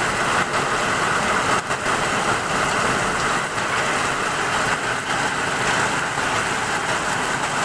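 Hail falling hard: a dense, steady clatter of hailstones striking a clay-tile roof and the ground.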